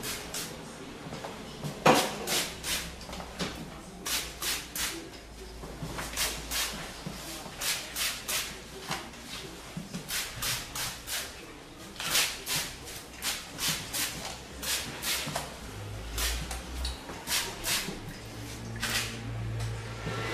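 A long run of short, sharp clicks or snips, about two or three a second with brief pauses, one louder knock about two seconds in; a low steady hum comes in near the end.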